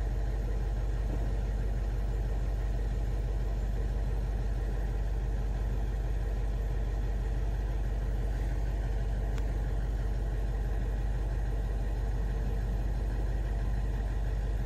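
A large engine running steadily, a deep, even rumble with no change in pace.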